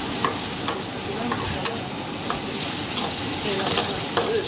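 Pad thai noodles sizzling in a wok as they are stir-fried, with a metal spatula scraping and knocking against the pan in sharp clicks about every half second over the steady sizzle.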